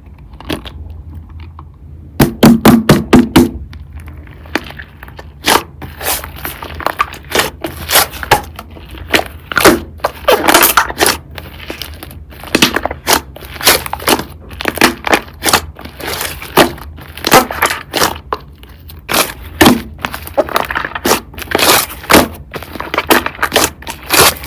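Slime being squeezed and pressed by hand, making many irregular sharp clicks and pops, starting about two seconds in.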